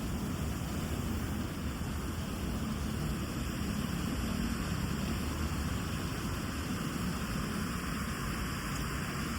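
Water fountain splashing and pouring, a steady rushing noise.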